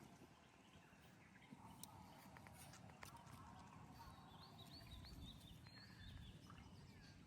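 Near silence: faint outdoor background with a few soft clicks and a short run of faint high chirps in the middle.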